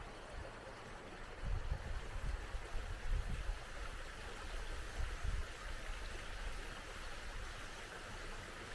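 A small mountain stream running steadily. Low rumbles come and go in the first part, much like wind on the microphone.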